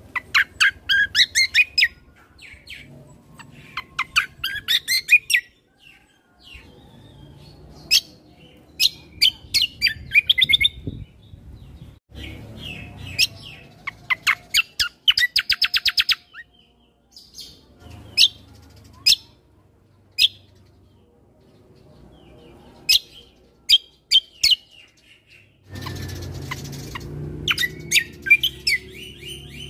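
Kecial kombo (cucak kombo) singing energetically in bursts of rapid, high chirping trills broken by short pauses, with a fast rattling trill midway and single sharp call notes after it. A low background rumble grows louder near the end.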